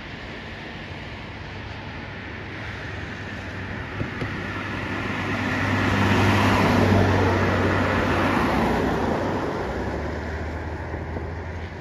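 A vehicle passing by: a low engine hum and rushing noise grow louder to a peak about seven seconds in, then fade.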